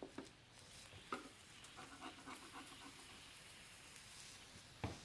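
Near silence with a few faint clicks and taps, and a short run of quick faint ticks about two seconds in.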